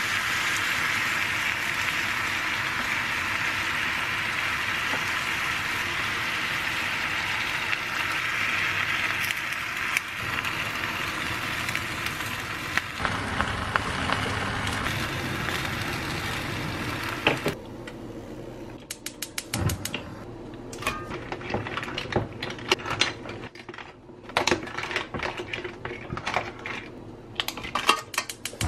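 A steady hiss over the pot for the first two-thirds. About 17 seconds in it gives way to irregular clacking of surf clam shells knocking together and against a stainless steel pot as they are stirred with a wooden spoon.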